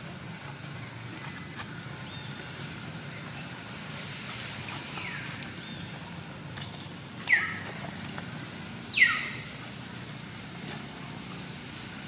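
Two short, high animal calls, each sliding down in pitch, about a second and a half apart, over faint repeated chirps and a steady low hum.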